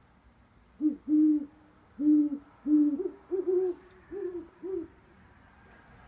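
Owls hooting: a run of about eight low hoots over some four seconds, a few in the middle pitched slightly higher than the rest.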